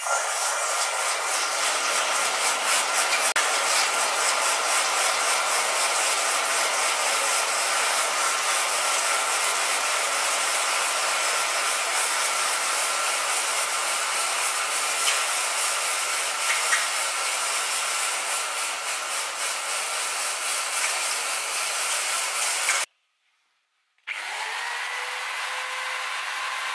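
Red-hot 1045 steel hammer head quenched in water: a loud, steady hissing and sizzling of water boiling against the steel, which stops abruptly after about 23 seconds. Near the end an electric rotary tool fitted with a milling cutter starts up, its whine rising and then holding a steady pitch.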